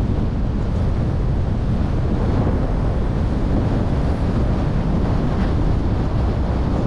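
Steady rumble of wind on the microphone, mixed with the road noise of a car driving along a street.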